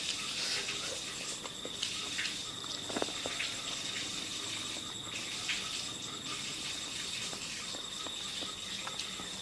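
Crickets chirring in one continuous, steady high-pitched trill, with a few faint short clicks now and then.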